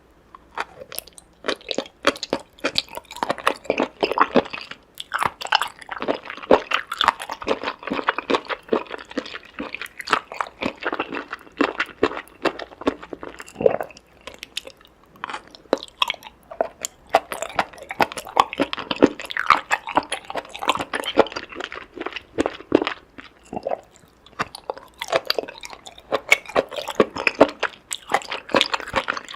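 Close-up chewing and crunching of seafood: a dense, continuous run of wet clicks and crunches from biting and mastication, starting about half a second in.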